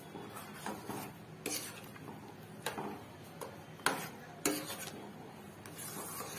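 A metal spoon stirring thick cornflour halwa in a metal pot, working in freshly added ghee. The spoon scrapes steadily round the pot, with several sharp clinks where it knocks the pot's side.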